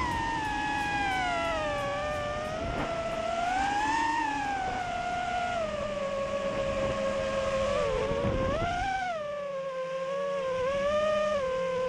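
Brushless motors and propellers of a 5-inch FPV quadcopter (TBS Steele motors) whining, the pitch sliding down and up as the throttle changes, with a sharp rise about nine seconds in. It is heard from the onboard camera with wind noise on the microphone.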